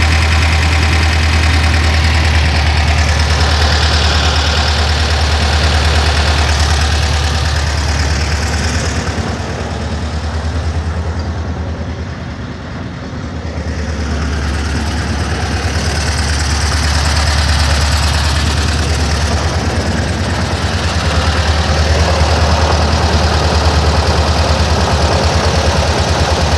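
Volkswagen Kombi engine idling steadily with a low, fast, even pulse; it grows quieter for a few seconds in the middle, then comes back up. It is running normally now that a small broken ring has been replaced.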